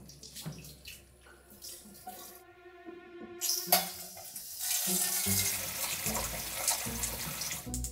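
A wall-mounted pot-filler faucet running a stream of water into an aluminium pot. The pouring starts about three and a half seconds in and grows fuller as the pot fills, then stops abruptly near the end.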